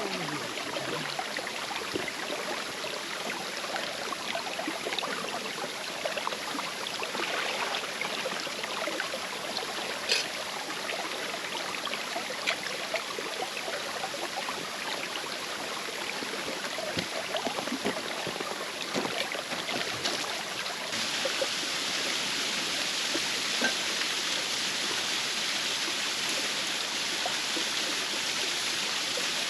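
Waterfall water rushing steadily, with a few scattered small clicks. About two-thirds of the way through, the rush turns suddenly fuller and brighter.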